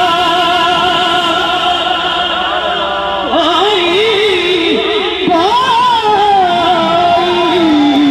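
Devotional solo singing: one voice holds a long steady note, then slides through ornamented, wavering runs before rising to hold another high note.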